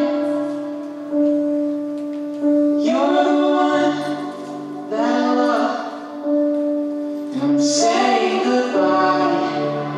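Music with a woman singing: long held notes, with phrases that rise and fall in pitch.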